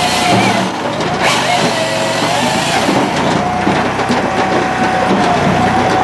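Firewood processor running: engine and hydraulic saw drive make a steady drone with a high whine, which dips and wavers for about two seconds, starting about a second in, as a log is sawn through. Scattered knocks from the machine throughout.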